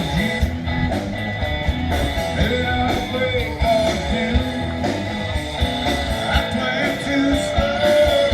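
Live rock band playing: a singer over guitar, with a steady beat.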